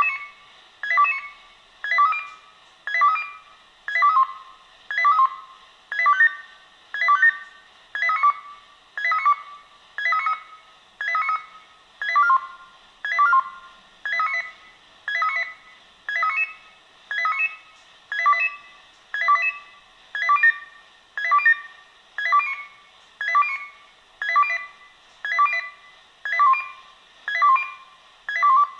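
Swissphone Quattro 96 pager sounding its alarm for a test alert: a loud electronic chirp repeating about once a second.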